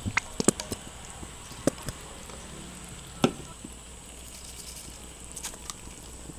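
Hot cooking oil in a wok sizzling around a dollop of red sauce, with a handful of sharp pops and crackles, the loudest about three seconds in.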